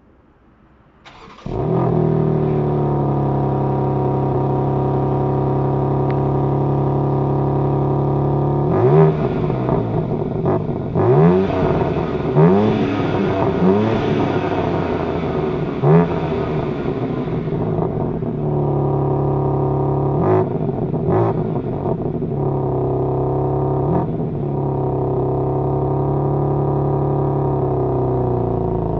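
BMW M4 Competition's twin-turbo straight-six starting about a second in and settling into a steady fast idle. It is then blipped several times, each rev rising and falling quickly, before it returns to idle, which drops slightly near the end.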